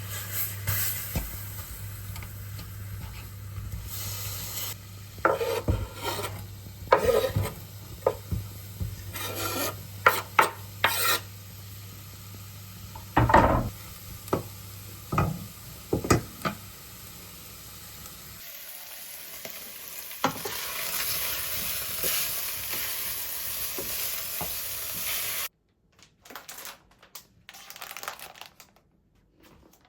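Home kitchen cooking: utensils knocking and scraping against a pan over a steady low hum, then food sizzling in a frying pan, which stops abruptly near the end and is followed by a few soft clicks.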